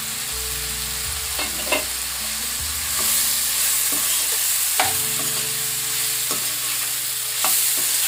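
Mushrooms, capsicum and onion frying in oil in a nonstick kadai as a steel spatula stirs in spice powders. The sizzle is steady and grows louder about three seconds in. The spatula clicks against the pan several times, sharpest just under two seconds in and near five seconds in.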